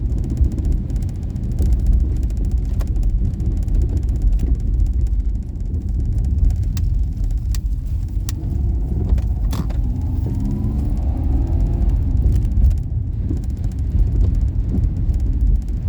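Daihatsu Esse three-cylinder kei car driving: a steady low rumble of engine and road noise, with the engine note rising for a couple of seconds about ten seconds in.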